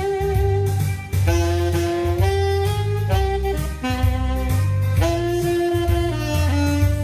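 Saxophone playing a melody in long held notes over a backing track with a pulsing bass line and a drum kit.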